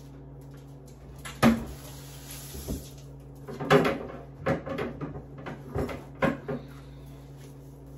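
Kitchen handling noises: a sharp knock about a second and a half in, then a run of knocks and clatters between about three and six and a half seconds in, over a steady low hum.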